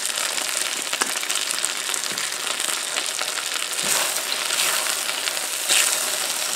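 Chicken, onions and peanuts sizzling in oil in a wok over high heat, stirred through from about four seconds in.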